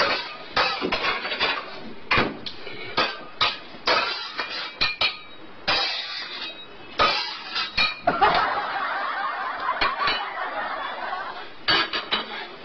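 Metal spatula knocking and scraping against a wok on the stove, with clinks of kitchenware, many sharp strikes in an uneven rhythm. A steady hiss runs for a couple of seconds from about eight seconds in.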